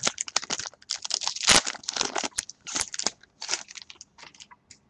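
Wrapper of a 2012 Topps Strata football card pack being torn open and crinkled by hand, in quick irregular crackles with a couple of louder tears, thinning to a few light clicks near the end.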